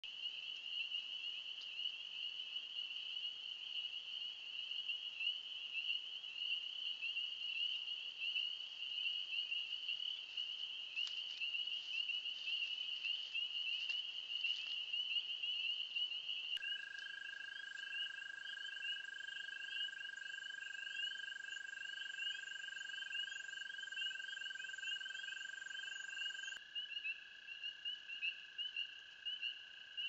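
Dense chorus of frogs calling, a continuous high-pitched mass of rapid calls. About halfway through, a steady high tone joins and holds.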